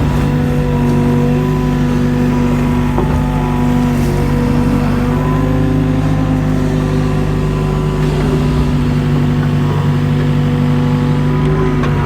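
Mini excavator's diesel engine running steadily at working speed while digging, with a few short knocks partway through and near the end.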